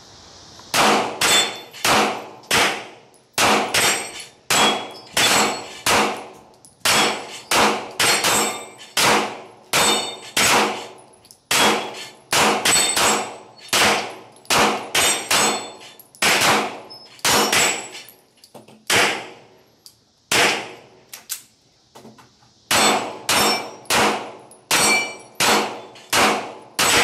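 Two pistols firing in rapid, irregular succession at a steel dueling tree, dozens of shots with the steel plates clanging as they are hit and each shot echoing. The firing stops for a few seconds about two-thirds of the way through, then resumes.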